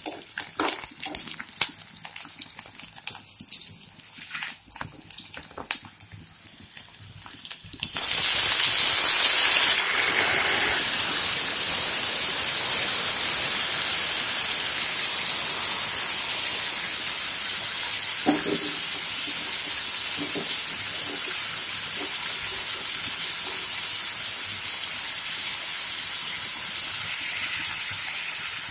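Spoon stirring and clicking against a metal kadai of onions, garlic and curry leaves frying in oil. About eight seconds in comes a sudden loud hiss as chopped tomatoes go into the hot oil, settling into a steady sizzle that slowly fades, with a few spoon knocks midway.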